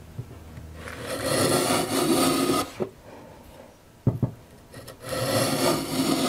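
Metal hand plane taking two long shaving strokes, each about two seconds, along the edge of a hardwood board, with a few light knocks between the strokes. It is trimming the edge down toward a scribed knife line.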